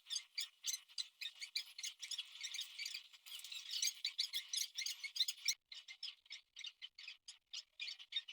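Fast typing: a steady run of irregular key clicks, several a second, with a brief pause about five and a half seconds in.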